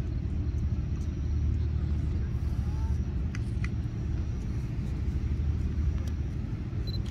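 Steady low background rumble, with a few faint clicks about three and a half seconds in.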